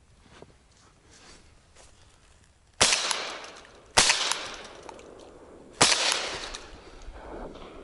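Three shots from an Impala Plus semi-automatic shotgun fired at a flying duck: the first about three seconds in, the second a second later, the third nearly two seconds after that, each followed by a rolling echo that fades over about a second.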